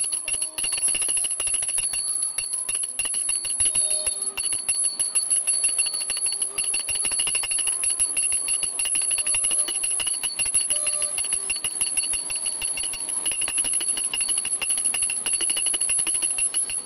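Small brass puja hand bell (ghanti) rung rapidly and without pause, a steady bright ringing.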